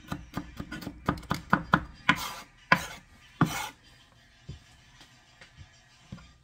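Knife chopping vegetables on a cutting board: a quick run of about four to five chops a second, then a few louder strokes between about two and three and a half seconds in, after which only faint ticks remain.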